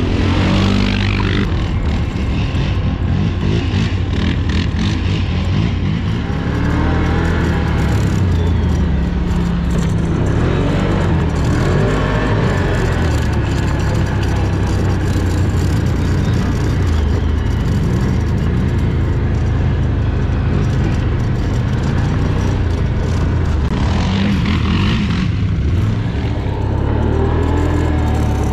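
Quad ATV engine running under way, heard from on board, its pitch rising and falling with the throttle.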